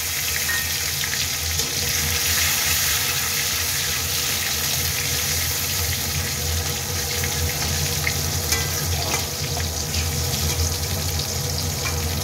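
Chopped tomatoes sizzling in hot oil with whole spices in an aluminium kadai: a steady frying hiss, with a steel spatula now and then scraping the pan as they are stirred.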